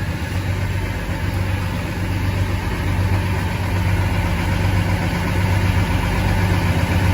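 Truck engine idling steadily: a constant low hum that grows a little louder toward the end.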